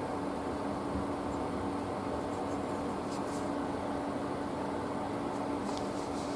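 Steady low hum and hiss of room noise, with a few faint clicks of small knife parts, a handle scale and a tiny metal standoff, handled between the fingers.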